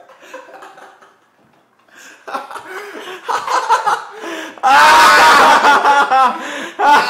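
Men laughing. It starts about two seconds in and becomes loud, hard laughter for a couple of seconds past the middle.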